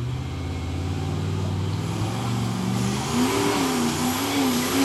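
Rock crawler's engine running under load on a steep rocky climb. Its pitch rises in steps about two and three seconds in, then wavers up and down as the throttle is worked.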